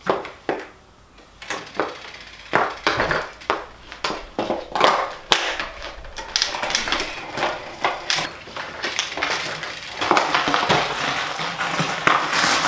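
Road-cycling shoe cleats clacking on concrete and the clatter of a Cervélo road bike being picked up and mounted, followed by a dense run of clicks and rolling noise as the bike sets off across the concrete.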